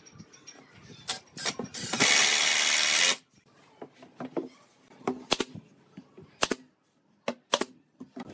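Cordless drill driving a screw into pine framing, one steady run of just over a second about two seconds in, with a few clicks just before it. Scattered sharp knocks and taps of wooden boards being handled and set on the frame follow.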